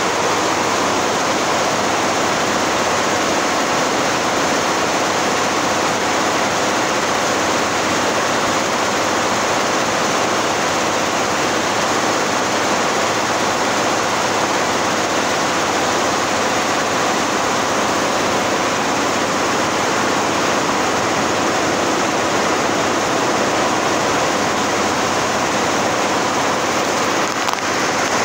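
Long multi-head industrial embroidery machine running, the combined clatter of its many needle heads merging into a loud, steady, even noise.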